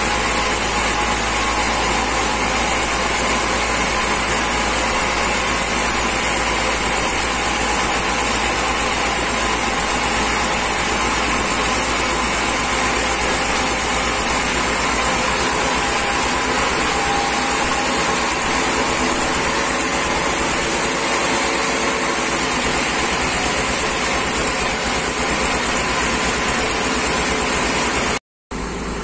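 Large sawmill band saw running and sawing through a huge merbau log: a loud, steady mechanical noise with a constant high-pitched whine over a low drone. It breaks off abruptly near the end.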